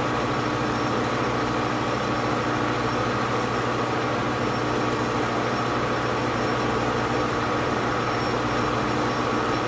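Small metal lathe running steadily, a constant hum with a faint whine above it, as its cutter turns a nylon workpiece in a test cut at a spindle speed the machinist judges a little too fast for the nylon.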